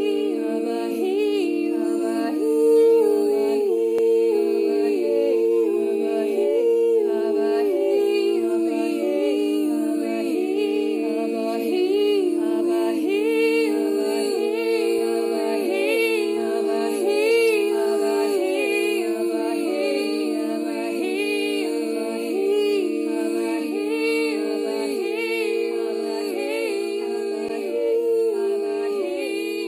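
Choir singing a cappella, several voices holding sustained, overlapping harmony that moves slowly from note to note without a break.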